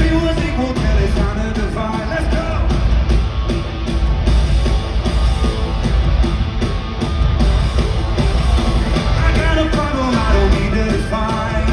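Live rock music from a band and singer through an arena PA, recorded on a phone, with heavy, dominant bass.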